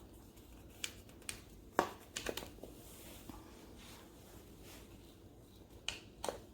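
A few short, sharp clicks and taps, some in quick pairs, over a faint steady background hum.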